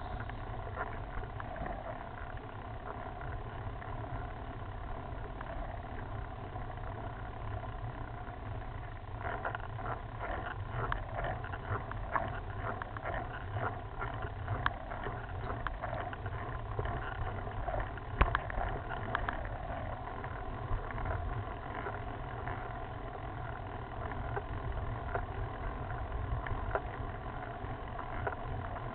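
Road bike riding up a rough, narrow mountain road, recorded from the handlebars: a steady low rumble of wind on the microphone and tyre noise. Scattered clicks and rattles from the bike over the rough surface come thickest about ten to twenty seconds in.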